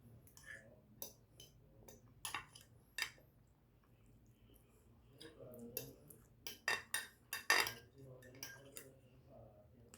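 Metal cutlery clinking and scraping against a plate as food is eaten, in irregular sharp clicks, busiest and loudest about two-thirds of the way through.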